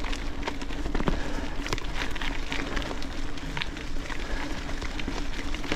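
Trek Supercaliber mountain bike ridden uphill on a muddy dirt forest track: the tyres crackle over wet ground, with a steady scatter of clicks and knocks from the bike, over a low rumble.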